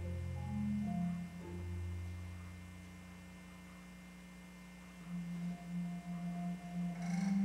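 Solo Yamaha concert marimba played softly: low mallet notes ring and fade, the music thins to a quiet sustained low tone around the middle, then soft rapidly repeated low notes (a roll) swell again near the end.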